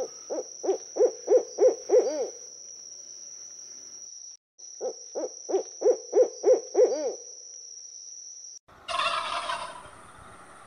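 A bird's call: a run of about seven short, low hooting notes, the last one longer, given twice about four and a half seconds apart. A louder, rougher sound follows near the end.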